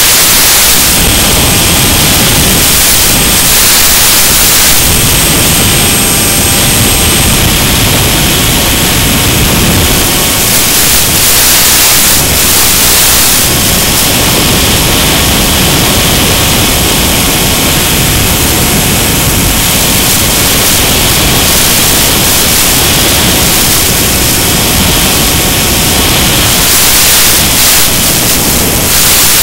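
Loud, steady static hiss from an analog FPV video link's receiver audio channel.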